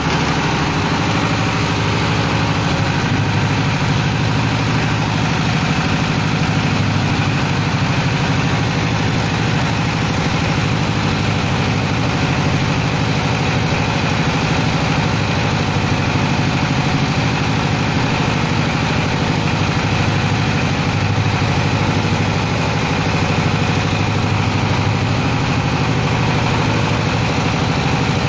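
Fish-feed processing machine running steadily under power, a constant motor drone with a fast low pulsing and no change in speed.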